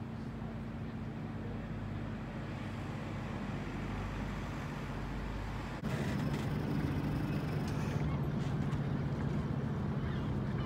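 Steady low engine drone with a few level tones in it, jumping louder with an abrupt cut about six seconds in.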